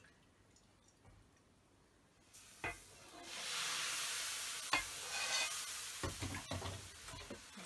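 Rice-flour bánh xèo batter poured into a very hot nonstick pan, starting a loud sizzle about three seconds in that slowly dies away. A couple of sharp knocks, one just before the sizzle and one during it.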